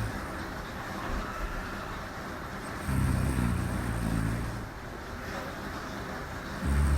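A woman snoring in her sleep: a low, pitched snore about three seconds in and another starting near the end, with steady hiss between them.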